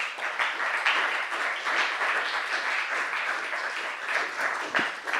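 Audience applauding: many hands clapping in a dense, even patter that fades away near the end.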